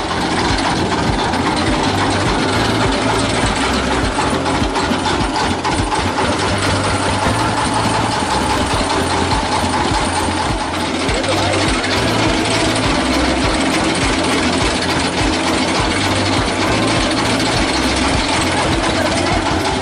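Stationary engine on a sugarcane-juice cart running steadily with an even, throbbing beat.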